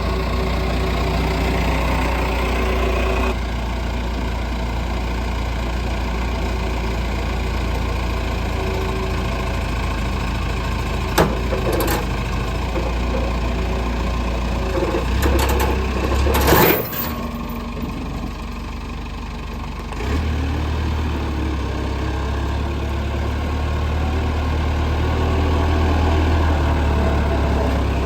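Heavy vehicle engine idling steadily with a low rumble that picks up about twenty seconds in. A few sharp knocks are heard around eleven and sixteen seconds.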